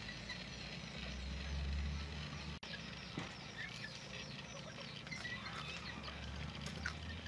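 Birds chirping faintly over a low rumble, with a few crisp crunches partway through as a breaded, deep-fried pork roll is bitten and chewed.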